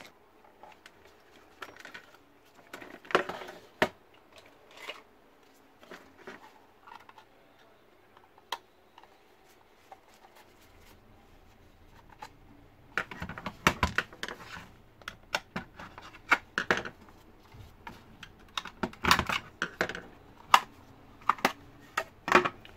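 Sharp plastic and metal clicks and scrapes as the case of a satellite receiver is pried open with a small screwdriver and handled: a few scattered clicks at first, then many in quick succession over the second half.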